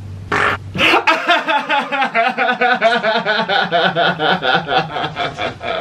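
A man laughing hard and loudly, with two sharp gasping bursts and then a long run of rapid pulsed laughs, about five a second.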